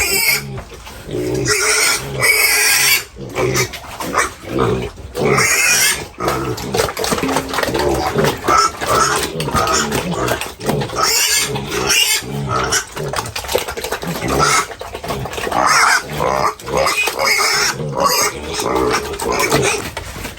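Domestic pigs squealing and grunting, a dense, irregular run of loud overlapping calls.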